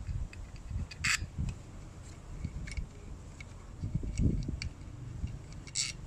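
A screwdriver working the screws of the aluminium cover plate on an 80cc motorized bicycle engine: small metallic ticks and scrapes over low handling thumps, with two short, sharper scrapes, about a second in and near the end.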